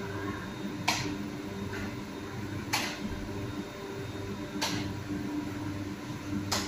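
Steady machine hum in a commercial bakery room, with a sharp click about every two seconds, four in all.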